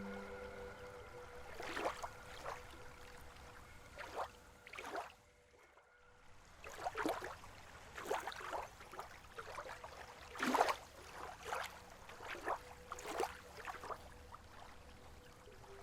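Lake water lapping in small irregular splashes, some louder than others, with a brief lull about five to six seconds in.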